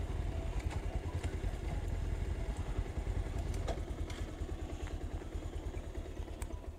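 Motorcycle engine running while riding along, a steady low pulsing rumble.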